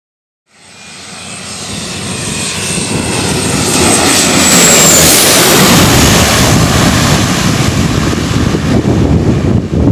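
Twin-engine propeller plane passing low overhead with its wheels down. The sound builds from faint to loud and peaks about halfway through, where a high whine drops in pitch as the plane goes by, then stays loud as it moves off.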